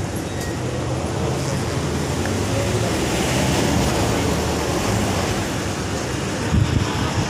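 Steady low rumble and hiss of background noise, with no single clear source standing out.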